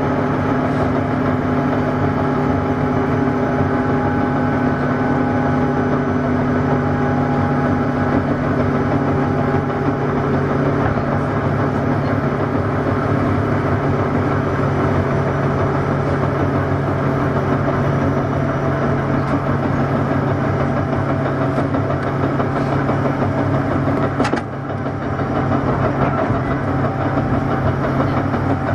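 Interior running sound of a JR 201 series electric train, heard inside a motor car: a steady rumble of wheels on rail with a constant motor hum. There is a brief click and a short drop in level about 24 seconds in.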